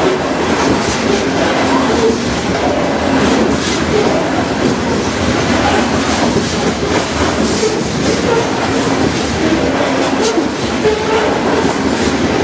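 Freight train of CRMX aggregate hopper cars rolling steadily past: a continuous noise of steel wheels on rail, with a few sharp clacks.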